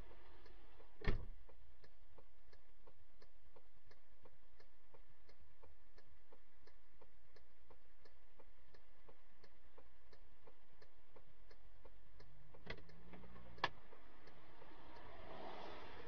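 Even ticking of a car's turn-signal relay, about two ticks a second, heard inside the stopped car. A sharper click comes about a second in and two more come near the end, then a wash of water spray hits the windscreen.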